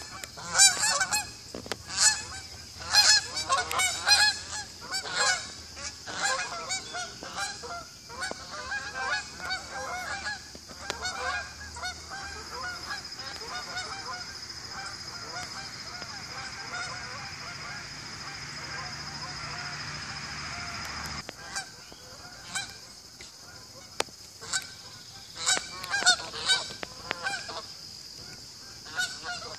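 A flock of geese flying overhead, honking in many overlapping calls; the honking dies away about twelve seconds in and picks up again near the end.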